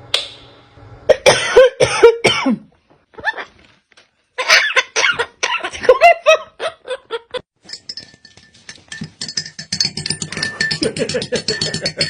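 A parrot making a string of short mimicked calls and noises, separated by brief pauses, with a fast run of clicking in the last few seconds.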